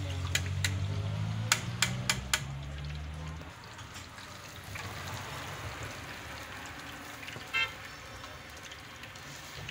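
Battered fish pieces deep-frying in hot oil in an iron karahi, a steady sizzle, with several sharp pops or taps in the first two and a half seconds. A low engine hum runs under the first three and a half seconds, and a brief high squeak comes near the end.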